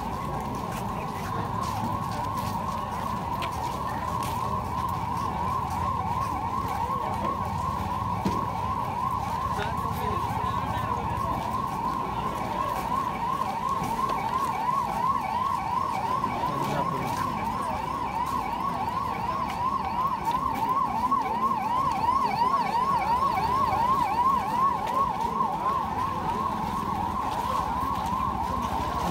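Emergency vehicle siren in a fast yelp, its pitch sweeping up and down quickly and over and over without a break, growing somewhat louder in the last third.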